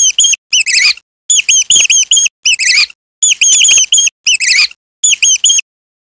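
Mouse squeaking: high-pitched squeaks in about seven quick runs separated by short pauses.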